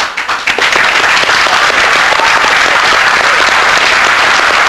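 Audience applauding: many hands clapping in a dense, steady clatter that swells in during the first half second.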